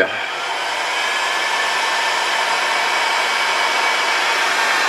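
Electric heat gun switched on and blowing steadily, its fan noise building over the first second and then holding even.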